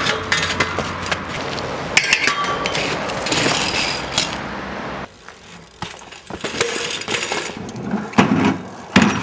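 BMX bike crashes: metal clanks and clattering as the bike hits the ground, with a short metallic ring about two seconds in and a steady rolling noise before it. Several hard knocks come near the end.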